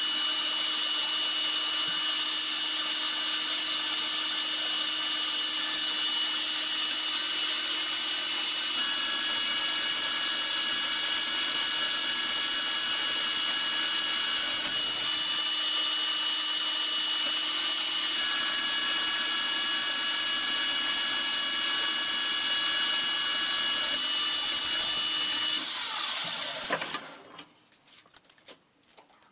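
Metal lathe running with its chuck spinning while a tool cuts an aluminum spacer: a steady machine whine with a low hum, and a second set of higher tones that comes and goes twice. About 26 seconds in, the lathe is switched off and spins down to a stop.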